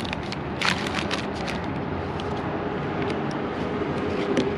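Light clicks and taps of intake parts being handled and fitted by hand, densest in the first second or so, over steady background noise with a faint hum that grows near the end.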